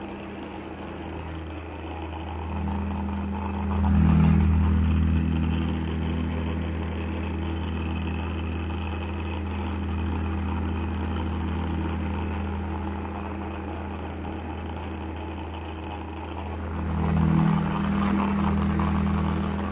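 Electric stand fan running: a steady low motor hum with a rushing haze above it, swelling louder twice, about four seconds in and again near the end.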